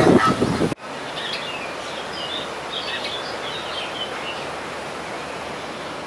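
Loud mixed background noise cuts off abruptly under a second in. Then small birds chirp and sing in short high phrases over steady outdoor background noise, most of it in the first half.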